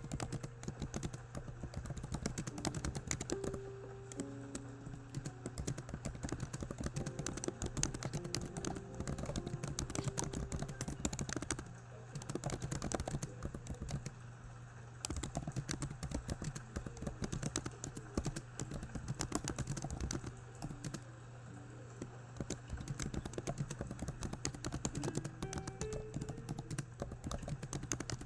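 Fast computer keyboard typing, a run of rapid key clicks broken by a few short pauses.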